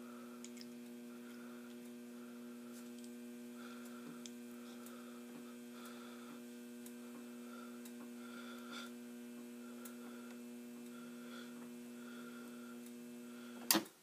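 Refrigerator door water dispenser running into a plastic cup, its valve giving a steady electric hum with a few faint ticks. The hum cuts off with a sharp click near the end as the cup is pulled off the paddle.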